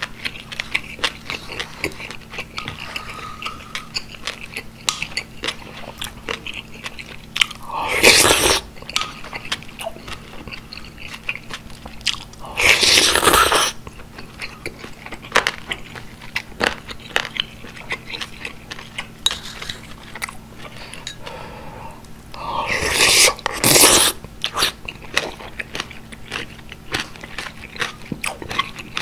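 Close-miked chewing of Korean beef and pork rice soup (gukbap), with wet mouth clicks throughout. Three times it breaks into a loud slurp of broth from a spoon, each about a second long.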